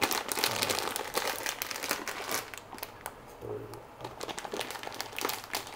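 Plastic bag of tortellini crinkling and crackling as hands twist, squeeze and pull at its top, trying to tear it open by hand. The crinkling is dense and irregular, with a short lull about three seconds in.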